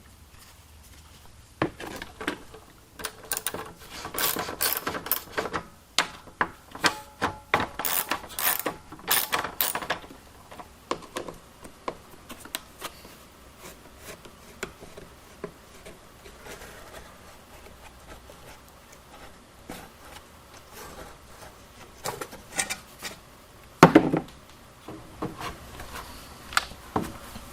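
Hand tools and small metal engine parts clicking, clinking and scraping as an old small engine's throttle linkage is worked on. A busy run of clicks in the first half gives way to scattered ones, with one louder knock near the end.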